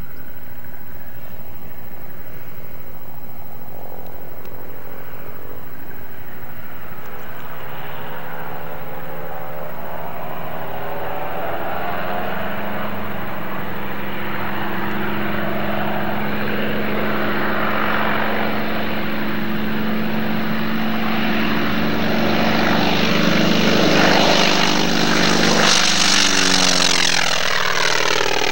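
Single-engine propeller airplane taking off at full power, its engine growing steadily louder as it comes down the runway and climbs overhead, with the pitch dropping as it passes by near the end.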